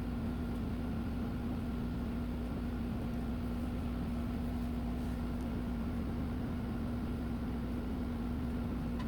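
A small electric motor running steadily with a constant, even hum and hiss.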